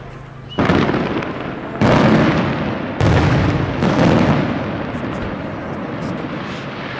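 Fireworks display: three loud firework bursts about a second apart, then a long rolling rumble and crackle that slowly fades.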